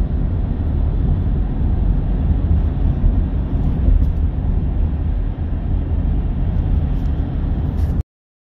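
Steady low rumble of a vehicle in motion, cutting off abruptly near the end.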